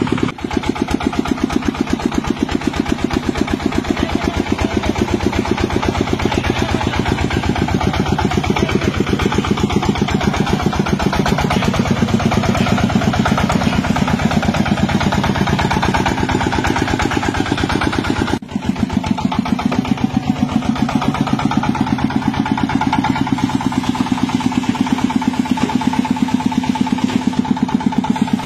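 Power tiller's single-cylinder diesel engine running steadily with a fast, even chugging, with a brief break about two-thirds of the way through.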